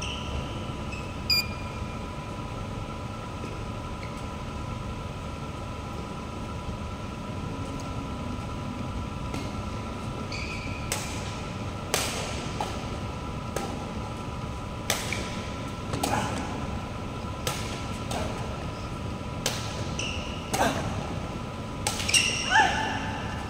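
Badminton racket strikes on a shuttlecock during a rally: one sharp hit about a second in, then, after a pause, sharp hits about every second to second and a half through the second half, over a steady background hum.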